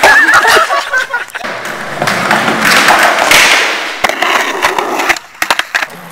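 Skateboard wheels rolling over concrete, then several sharp clacks and knocks of the board hitting the pavement near the end. A voice calls out at the start.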